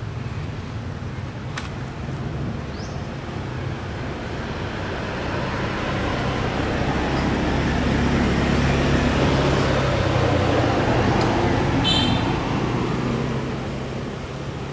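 A motor vehicle passing by: engine hum and road noise swell to a peak midway, then fade away.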